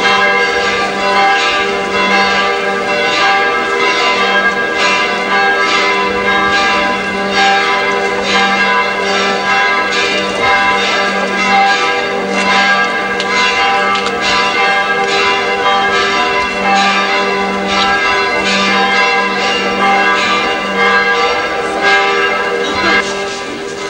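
Church bells pealing: several bells struck over and over, their tones ringing on and overlapping.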